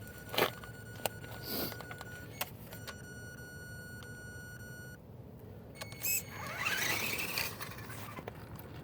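Brushed electric motor of an RC rock-racer truck driving under throttle, with a steady high whine and, about two thirds of the way in, a whine rising in pitch as it speeds up. A few short clicks and knocks are heard along the way.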